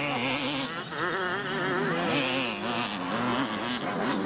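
Several motocross bikes' two-stroke engines revving hard at once, their pitch climbing and dropping rapidly as the riders work the throttle over the jumps.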